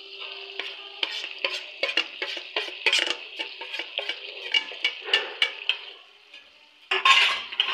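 Metal spoon stirring green peas in fried masala in a metal pan, quick repeated scrapes and clicks against the pan over a light sizzle of frying. The stirring stops about six seconds in, and a short louder burst of sound follows near the end.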